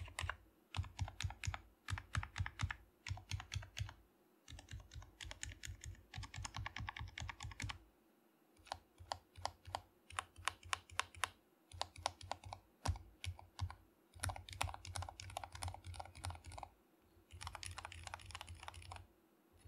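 Typing on a GK61X 60% hot-swap mechanical keyboard with lubed Gateron Silent Black switches and Akko PBT keycaps. The keystrokes come in quick runs broken by short pauses. The typing is quiet, which the builder credits to the lubed switches and stabilizers and the acoustic foam inside.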